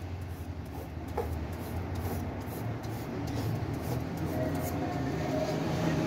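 Fine 1000-grit sandpaper rubbing against the end of a thin aluminium magnet wire from a fan motor coil, scraping off its enamel insulation in a soft, scratchy rubbing. A low hum grows louder near the end.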